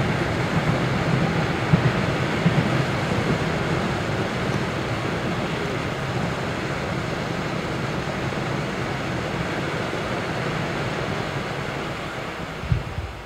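Two small Van der Nat dark-gold fireworks fountains burning: a steady rushing hiss of spraying sparks, with a few sharp cracks in the first couple of seconds. The hiss slowly weakens as the fountains burn out, and a single thump comes near the end.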